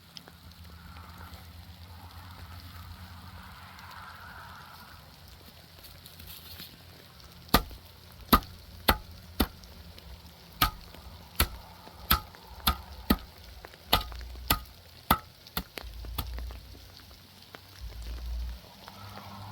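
A run of about a dozen sharp knocks, each half a second to a second apart, starting about a third of the way in and stopping about five seconds later, over a low rumble.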